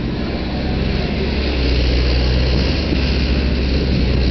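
Hyundai Robex 140-9 crawler excavator's diesel engine running steadily under load while the machine slews round, a low, even drone.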